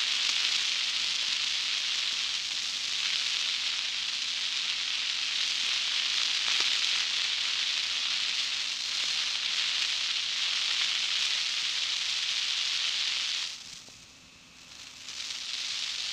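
Steady crackling hiss of tyres rolling over a gravel road, with a faint steady hum underneath. The hiss drops away sharply for about a second near the end, then returns.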